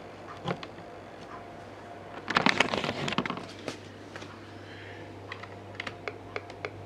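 A dense clatter of small hard clicks lasting about a second, then scattered single sharp clicks, from small parts and wires being handled on the bench, over a steady low hum.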